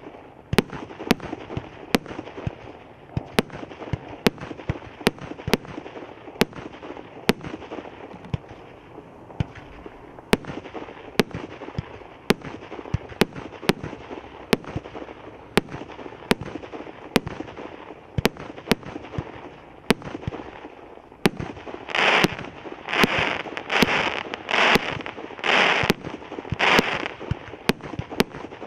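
A 48-shot consumer fireworks cake firing in steady succession: sharp bangs about twice a second over a constant crackling noise. Near the end come about six louder rushing bursts, each about half a second long and about a second apart.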